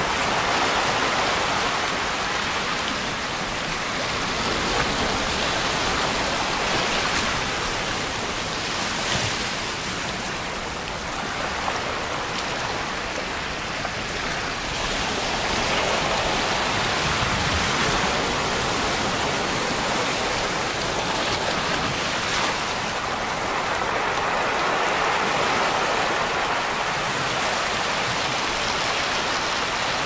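Small ocean waves breaking and washing up a sandy beach: a continuous rushing wash that swells and eases every few seconds.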